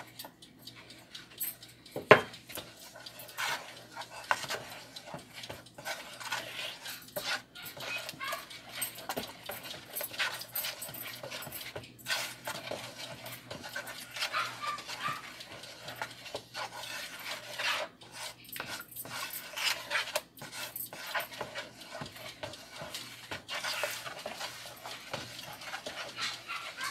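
Spoon stirring a thick condensed-milk and coconut mixture in a plastic bowl, scraping the sides in irregular strokes, with one sharp knock against the bowl about two seconds in.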